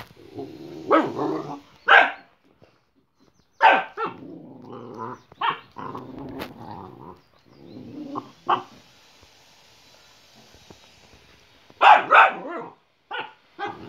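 Boxer dogs, a puppy and an adult, growling and barking in short irregular bursts, with a lull of a few seconds before a loud double bark near the end.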